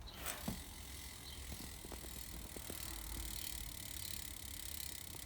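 Fit Bike Co. cassette hub on a BMX freewheeling as the rear wheel spins, its ratchet clicking in a fast, steady buzz.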